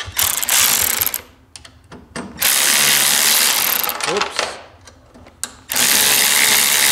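Hand ratchet wrench clicking quickly as it is swung back and forth, driving a bolt to fasten a hitch to a snowmobile's rear bumper, in three runs separated by short pauses.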